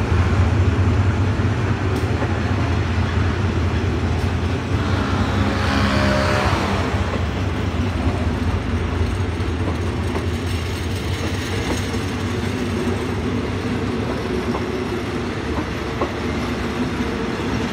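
Passenger coaches of a departing express train rolling slowly past: a steady rumble of steel wheels on the rails. A low hum fades after the first few seconds, a rushing swell passes about six seconds in, and a few faint clicks follow.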